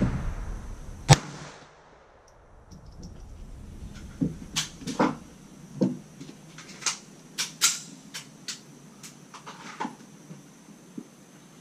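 A single semi-automatic pistol shot about a second in, its crack fading quickly under the range roof. It is followed by a string of light clicks and knocks as the pistol is set down and handled on the wooden bench.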